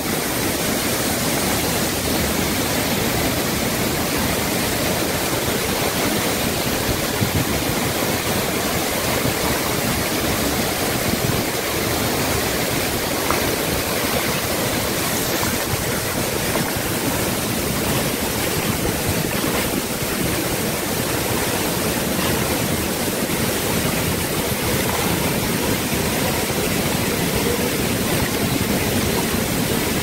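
Waterfall pouring into a rocky stream: a steady, even rush of falling and tumbling water that does not change.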